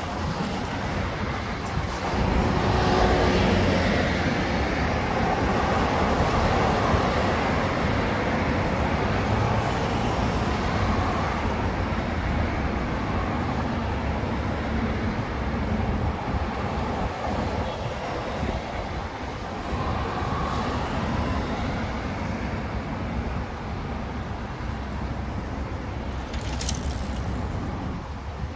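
Steady road traffic on a busy street, cars passing with slow swells as vehicles go by, loudest a few seconds in and again about two-thirds through. A brief high-pitched sound stands out near the end.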